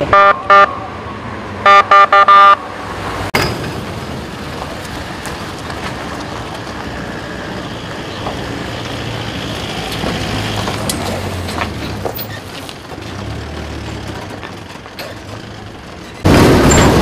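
A vehicle horn tooting in short beeps, two and then four in quick succession, followed by a steady vehicle engine and street noise. A loud rushing noise comes in near the end.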